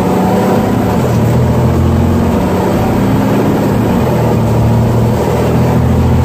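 Fire truck engine running under way, heard loud from inside the cab, its pitch stepping up and down several times as the truck drives off.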